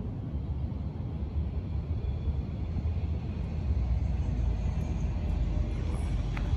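Steady low rumble of wind buffeting the microphone, with a faint click near the end.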